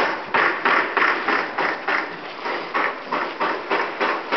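Brisk walking: short scuffing footsteps and the rustle that goes with each stride, in a steady rhythm of about three a second.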